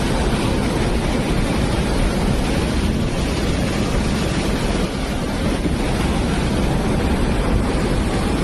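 Floodwater pouring through a dam's open spillway gates in a loud, steady rush.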